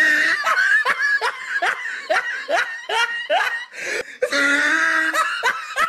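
A woman laughing hard in a run of short, repeated bursts, about two or three a second, then a longer held laugh about four seconds in.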